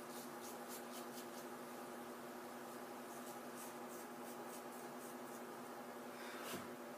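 Dashi straight razor scraping through lathered stubble on the neck in short, irregular strokes, several a second, with a steady hum beneath. One louder bump near the end.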